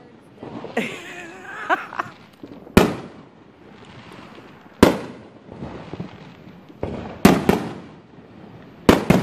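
Aerial fireworks shells bursting overhead: sharp bangs a couple of seconds apart, coming in quicker pairs and threes in the second half, with fainter pops between them.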